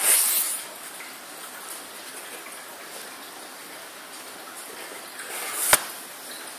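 Steady hiss of background noise with handling noise on the recording: a brief rustle at the start and a rising scrape ending in one sharp knock about five and a half seconds in.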